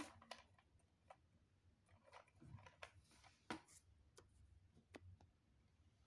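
Faint scattered clicks and light knocks of LEGO Technic plastic parts as the model is lifted and handled, the strongest right at the start and another about halfway through.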